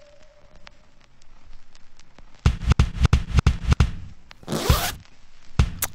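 A quick run of about ten sharp rasping clicks, then a short hissing swipe, and two more clicks near the end.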